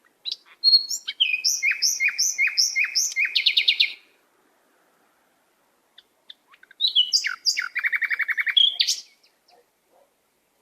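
A songbird singing two phrases a few seconds apart, each a run of quick, repeated, downward-sliding notes that ends in a rapid trill.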